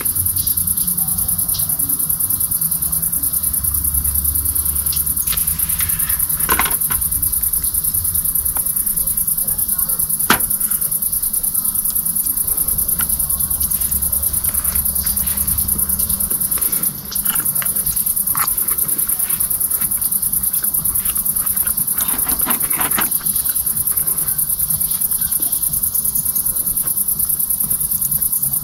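Crickets chirring in a steady, high-pitched buzz, with a few scattered clicks, the sharpest about ten seconds in.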